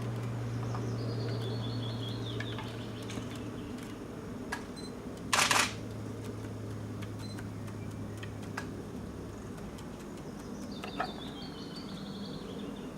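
Small backyard birds twittering in two short runs of high chirps, one near the start and one near the end, over a steady low hum. A short, loud burst of noise about five and a half seconds in, with a few faint clicks scattered through.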